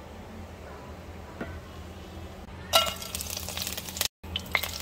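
Whole spices (cinnamon stick, star anise, cardamom pods and cloves) sizzling in hot oil in a pan. The sizzle starts suddenly, loudest at its onset, about two and a half seconds in, and breaks off for a moment just after four seconds.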